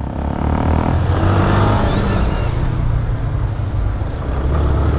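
Yamaha Fazer 250's single-cylinder engine running as the motorcycle pulls away and rides on, growing louder over the first second and then holding steady, with road noise.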